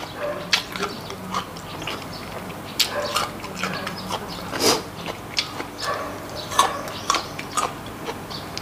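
Close-up wet chewing of raw salmon strips marinated in soy sauce, heard as irregular mouth clicks and smacks.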